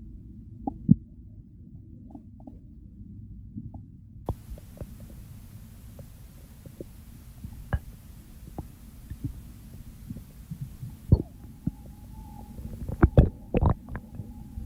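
Human stomach and bowel sounds: a low steady rumble with scattered short pops and gurgles, and a cluster of louder gurgles near the end.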